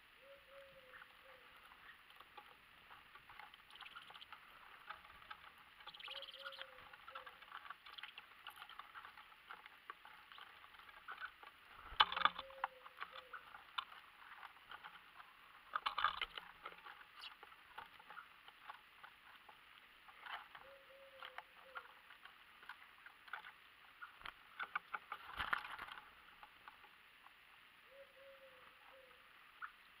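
Small birds pecking seed and hopping on a wooden feeding tray: a steady scatter of small ticks and taps, with three louder, brief fluttering bursts as birds land or take off close by. A short low call repeats about five times in the background.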